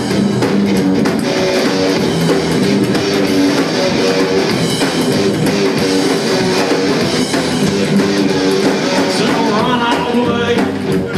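Live psychobilly band playing: electric guitar over upright bass and drums, loud and steady throughout.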